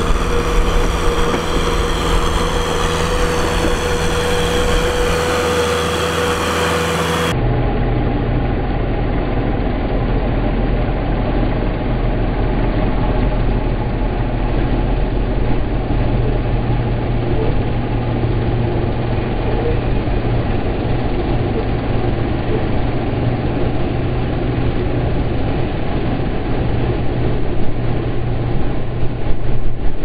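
Kubota M6040 tractor's four-cylinder diesel engine running steadily as it pulls through deep paddy mud, the tyres churning and splashing the mud and water. The tone shifts abruptly about seven seconds in, and there are a few louder surges near the end.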